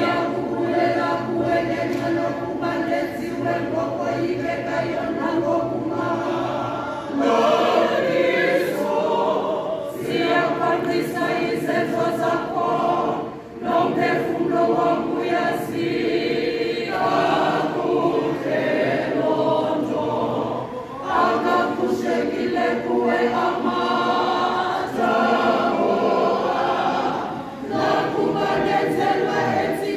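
Church choir of mixed voices, mostly women, singing a hymn unaccompanied, in long held phrases with short breaks between them.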